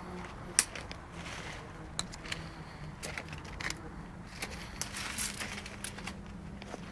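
Irregular clicks and crackles of leaves and twigs being brushed and snapped among tree branches, with one sharp click about half a second in, over a faint steady hum.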